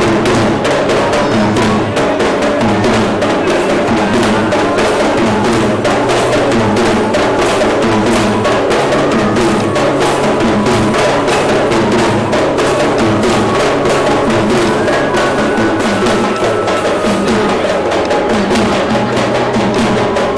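Traditional Sri Lankan double-headed hand drums played fast and loud, a dense, driving rhythm of many strokes a second with no let-up.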